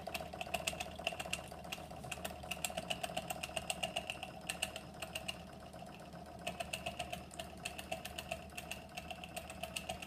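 1909 Carette hot air (Stirling-type) model engine running, with a steady mechanical clicking of about three to four clicks a second over an even hum.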